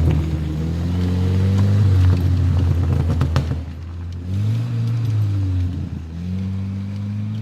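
Suzuki Vitara 1.6 8-valve four-cylinder engine working off road, its revs climbing and dropping several times as the throttle is worked. A few sharp knocks come about three seconds in.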